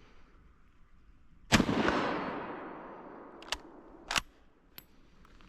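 A single 8x57 Mauser rifle shot from a bolt-action Gewehr 98, fired about a second and a half in, its report trailing off over about a second and a half. It is followed by three sharp metallic clicks of the bolt being worked to eject and chamber the next round.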